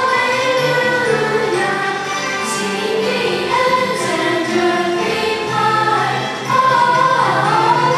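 A choir singing an Easter hymn with instrumental accompaniment, held notes gliding from one to the next.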